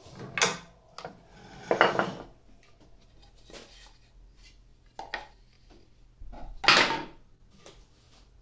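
Knocks, clacks and short scrapes from handling a table saw's fence and small boards on the saw's steel table. The loudest come about half a second in, around two seconds and near seven seconds, with lighter knocks between.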